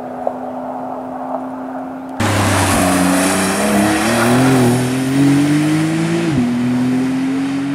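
A Porsche 992 Targa 4 GTS's turbocharged 3.0-litre flat-six holds a steady engine note at first. About two seconds in, the sound jumps louder and the engine note climbs under acceleration, then drops sharply about six seconds in and settles into a steady, slowly rising note.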